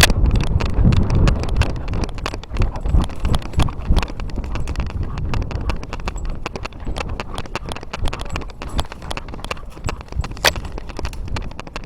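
Footsteps crunching and rustling through dry undergrowth, a dense, irregular run of clicks and cracks with low thuds, growing fainter, with one sharper crack near the end.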